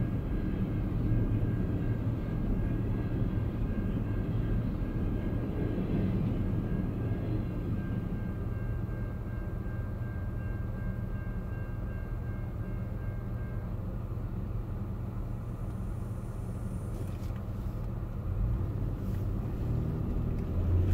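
Low rumble of a double-stack container freight train's last cars passing and fading away, heard from inside a stopped car, with a steady low engine hum under it. A thin steady high tone drops out about two-thirds of the way through, and the rumble swells again near the end.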